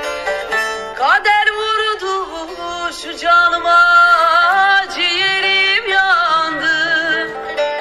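Middle Eastern folk music: a singer's voice sliding and wavering in long ornamented notes over a plucked string instrument.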